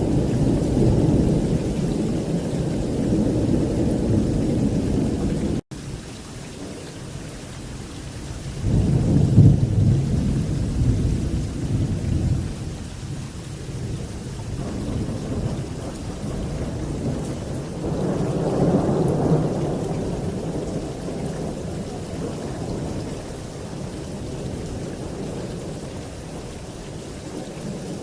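Thunder rolling again and again over steady heavy rain. One long rumble cuts off abruptly about five seconds in, and fresh rolls of thunder swell up around nine seconds, again near the middle, and once more near the end.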